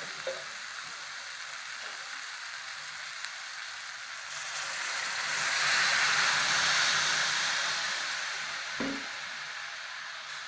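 Vegetables and vermicelli sizzling in a hot pan. About four seconds in, water is poured into the pan and a loud rushing sizzle swells, peaks a couple of seconds later, then dies back to the steady sizzle.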